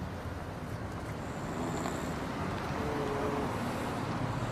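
Steady low street background noise, an even rumble with no distinct strokes, and a faint short tone about three seconds in.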